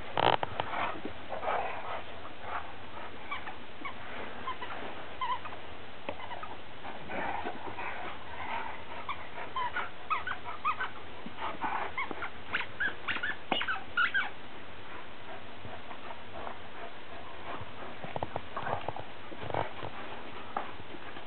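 Two dogs playing, giving short high-pitched whines and yips in scattered bursts, thickest about ten to fourteen seconds in.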